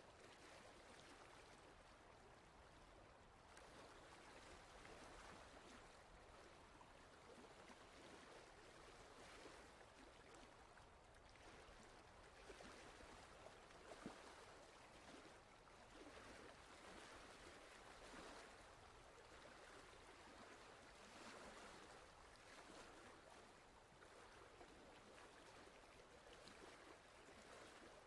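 Faint steady rushing noise that swells and eases every few seconds, like running water.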